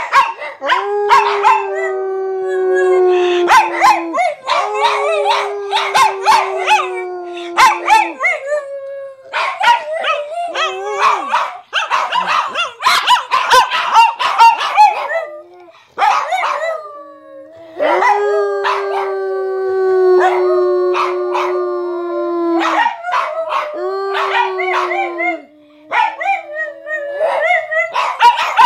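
Two small dogs howling and barking together: long drawn-out howls of a few seconds each that slide slowly down in pitch, with sharp barks and yips over them. They go quieter for a moment in the middle, then start howling again.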